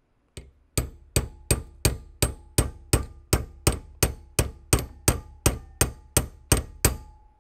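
Hammer striking a steel punch in a steady rhythm, about three blows a second after one faint first tap, each blow leaving a short metallic ring. The punch is bending a small steel part clamped in a vise, cold, without heat.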